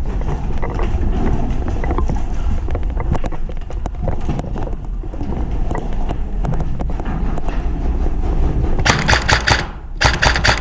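Two rapid bursts of airsoft gunfire, each a fast train of clicks, about nine seconds in and again a second later. Before them, a low rumble of movement and scattered handling knocks.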